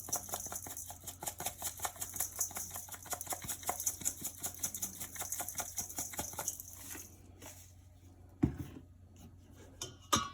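Garlic-and-pepper seasoning shaken from a spice shaker over raw chicken pieces: a rapid, rhythmic rattling patter of granules that stops about seven seconds in. A single thump follows about a second later.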